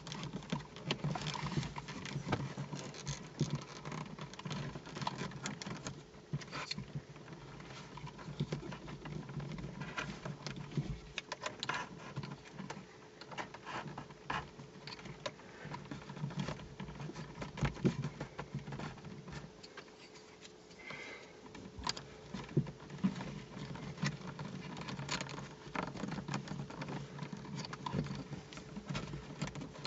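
Hands working a plastic trim cover and dashcam mount into place at a car's headliner: irregular light clicks, taps and scrapes of plastic, over a faint steady hum.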